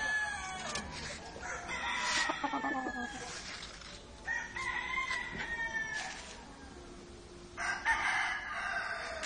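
Rooster crowing repeatedly, a long crow about every three seconds.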